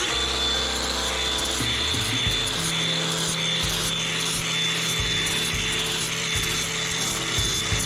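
A power tool running steadily, with a thin high whine over a dense grinding noise.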